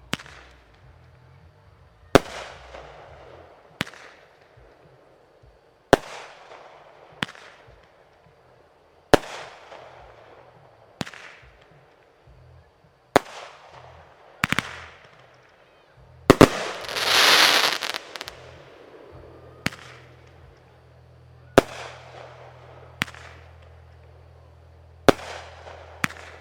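Fireworks shells bursting with sharp bangs about every one to two seconds, each trailing off in a fading echo. About sixteen seconds in, a hissing burst lasts about two seconds.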